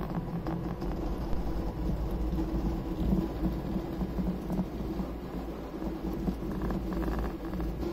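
Custom cross-XY 3D printer printing at high speed: its motors drive the print head rapidly back and forth, giving a steady hum under a constantly changing buzz.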